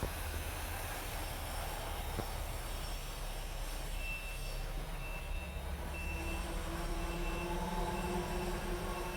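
Car engine running at idle, a steady low rumble, with a short high-pitched beep repeating a little more than once a second from about four seconds in.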